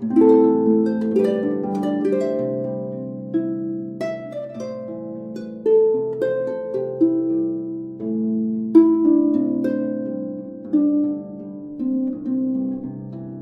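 Background music: plucked strings playing a gentle melody over chords, each note struck and left to ring and fade.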